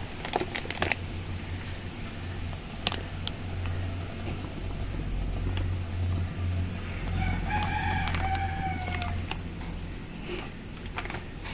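A rooster crowing once, one long call of about two seconds starting about seven seconds in, over a steady low hum. A few sharp clicks come in the first seconds.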